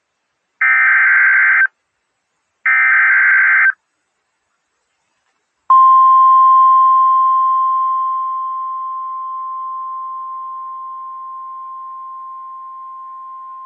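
Emergency Alert System / NOAA Weather Radio alert: two one-second screeching SAME digital header bursts a second apart, then after a short silence the steady 1050 Hz warning alarm tone begins, gradually growing quieter, marking the start of a new warning broadcast.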